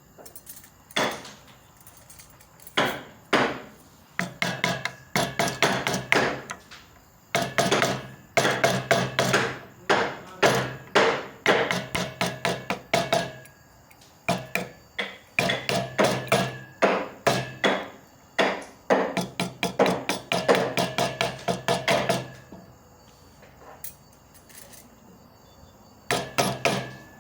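Mallet tapping a carving chisel into wood in quick runs of sharp strikes, with short breaks between runs and two longer pauses of a few seconds.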